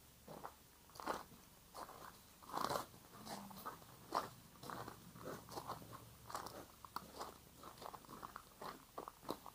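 Footsteps crunching on loose gravel at a steady walking pace, about two to three steps a second.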